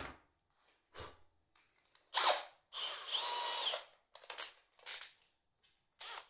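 Cordless drill-driver spinning up briefly, then running steadily for about a second, with light clicks and knocks of parts being handled around it.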